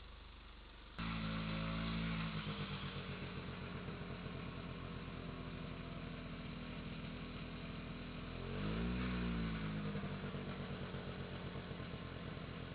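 Vehicle engine running close by with a steady throbbing beat. It gets suddenly louder about a second in, and revs up and back down once past the middle.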